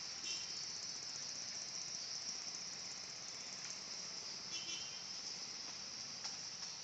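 Swiftlet lure recording played back: a steady, high-pitched buzzing chorus, with brief twittering chirps near the start and again about two-thirds of the way through.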